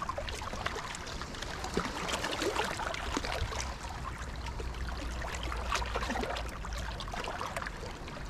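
Small waves lapping and trickling among shoreline rocks: a steady wash with many little splashes and drips scattered through it.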